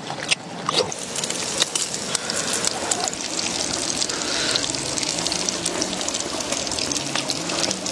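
Pork belly and side dishes sizzling in hot oil on an iron griddle: a steady hiss with scattered small crackles.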